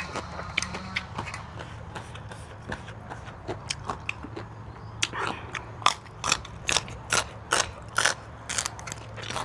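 Close-miked eating: sharp, wet clicking and smacking mouth sounds of chewing, sparse at first and about two a second from the middle on, over a low steady hum.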